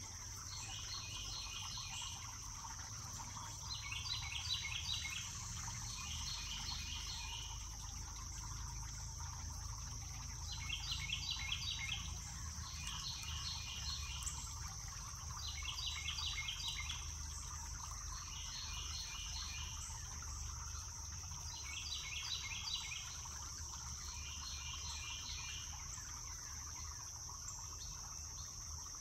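Evening insect chorus: a steady high-pitched drone, with rasping insect calls about a second long made of rapid pulses, recurring every second or two, often in pairs. A faint low rumble lies underneath.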